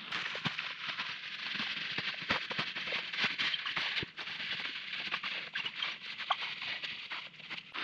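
Tent fabric rustling and crackling as it is crammed by hand into its stuff sack: a continuous crinkly rustle scattered with small crackles.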